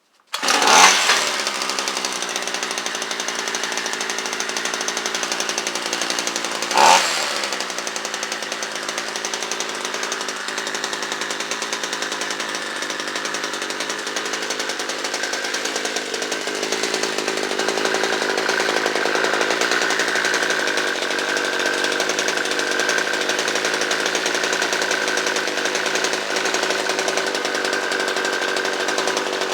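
A Homelite string trimmer's small two-stroke engine, its carburettor now fitted with adjustable needles, starts up about half a second in and keeps running steadily. It gives one quick rev about seven seconds in, then settles back to its steady running, the pitch shifting slightly about halfway through.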